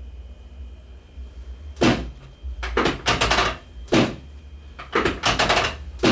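Five short bursts of rapid mechanical clicking, each lasting under a second, spaced about a second apart, typical of a hand-held chiropractic adjusting instrument tapping along the lower back and SI joints.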